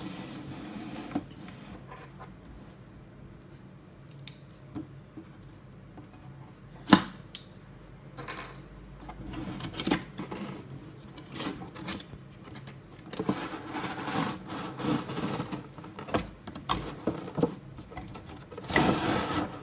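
Cardboard toy box with a clear plastic window being opened and handled: scattered rustling, scraping and crinkling, with a sharp snap about seven seconds in.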